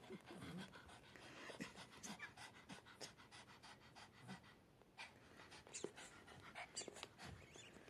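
Papillon dog panting quickly and evenly, faint, out of breath from a long spell of fetch play.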